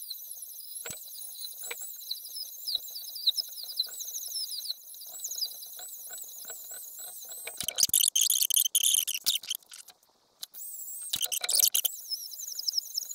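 Handheld high-speed rotary tool running with a high, wavering squeal as it grinds on the knife's antler handle. A louder, harsher grinding stretch comes about eight seconds in and another near the end, with a brief stop in between.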